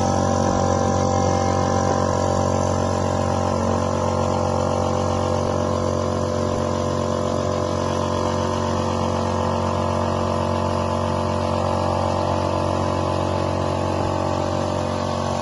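CNC bending machine running with a steady, unchanging mechanical hum made of several fixed tones.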